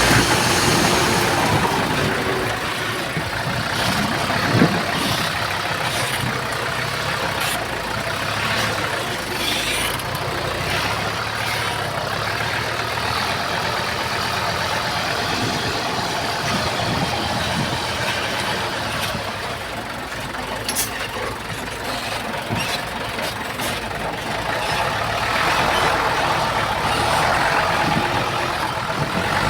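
Diesel engine of heavy earthmoving machinery running steadily, with a few sharp metallic clanks along the way.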